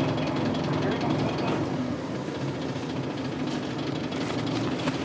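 1998 Isuzu Cubic KC-LV380L city bus's 8PE1 V8 diesel engine running steadily with a constant low hum, a little quieter after about two seconds.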